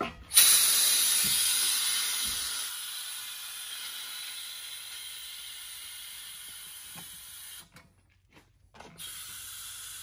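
Loud hiss of escaping compressed air that starts suddenly, fades slowly over several seconds, cuts off, and comes back fainter near the end.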